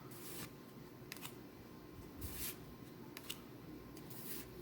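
Trading cards being handled and flipped through one by one, with about five short swishes and clicks of card stock sliding against card.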